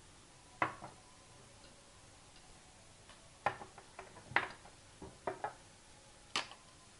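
Glass storage jars with wooden lids being set down on a countertop and a wooden lid lifted off and laid down: a handful of sharp clinks and knocks, with a quick cluster in the middle and a pair about five seconds in.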